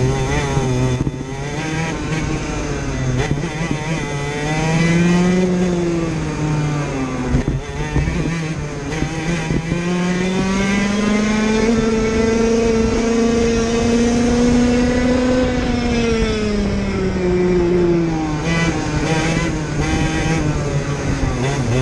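IAME KA100 100cc two-stroke kart engine at racing speed, heard onboard, climbing in pitch on the straights and dropping as the driver lifts for corners. It dips near the start and again about a third of the way in, makes its longest climb and holds high through the middle, then falls away before picking up again near the end.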